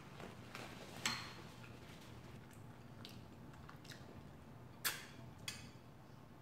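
Sharp clicks and clinks of a drinking glass being handled, one about a second in and two near the end, with faint sipping through a straw in between.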